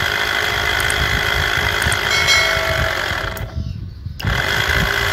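12 V diaphragm pump of an electric knapsack sprayer (5 bar, 1.6 L/min) running with a steady, whining motor sound. It cuts out for under a second about three and a half seconds in, then runs again. The owner judges from this sound that the weak spray comes from a fault in the pump's motor.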